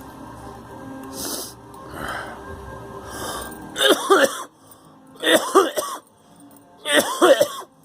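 A person with a lingering cold coughing: after a few soft breathy sounds, three harsh, wheezy coughs come about a second and a half apart, starting about four seconds in.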